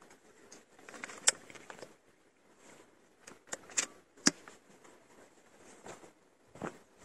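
Metallic clicks of an air rifle's bolt being worked by hand: one sharp click about a second in, then a quick run of four clicks between about three and four and a half seconds in.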